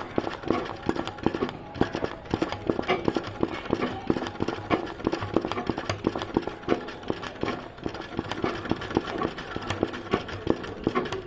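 Sewing machine stitching, a fast uneven clatter of needle strokes.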